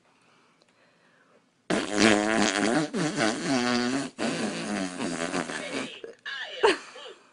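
A loud, long fart noise of about four seconds, in three stretches one after another, then a short voice sound near the end.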